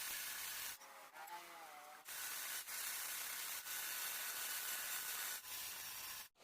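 Abrasive rubbing on wood, a steady scratchy hiss, broken by a quieter stretch with faint squeaky tones about a second in and by a sudden dropout just before the end.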